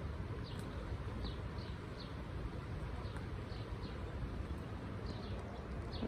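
A small bird chirping repeatedly, short high notes a few times a second, over steady outdoor background noise.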